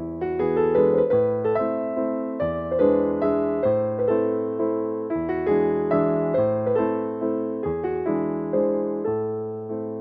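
Slow background piano music: chords struck one after another and left to ring and fade, over a bass note that changes every second or two.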